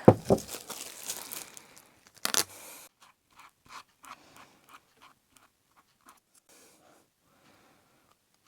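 Handling noises on a workbench: rustling and scraping with a few sharp clicks, loudest in the first three seconds, then dwindling to faint scattered taps.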